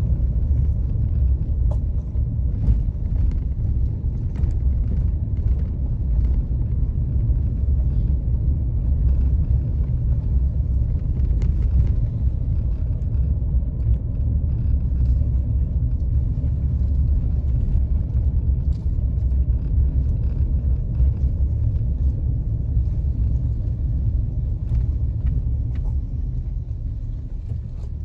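Car driving slowly on a rough road, heard from inside the cabin as a steady low rumble of engine and tyres, with faint scattered clicks.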